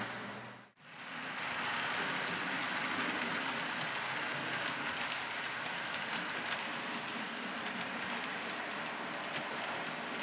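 Model freight train rolling along the layout track: a steady whirring hiss with faint fine clicks of wheels over the rails. The sound drops out briefly less than a second in and fades back up.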